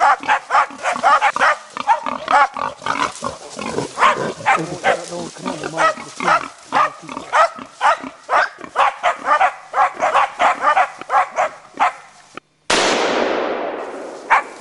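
Hunting dogs barking and yelping rapidly, several calls a second, as they bay a wild boar. Near the end the barking breaks off and a single rifle shot rings out with a long fading echo through the forest, then the barking starts again.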